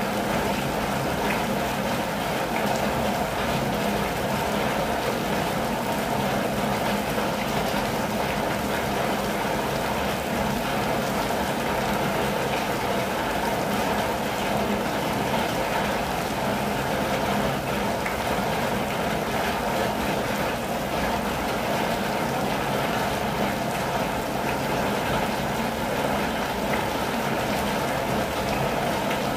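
Steady, unbroken rain falling on a campervan's roof and windows, heard from inside the van as an even patter with a low rumble beneath it.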